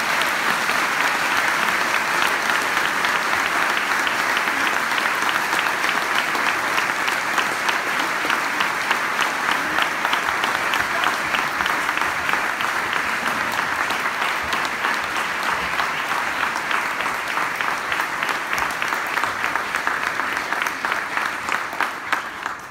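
Audience applauding, a dense, steady clapping of many hands that holds throughout and then stops sharply.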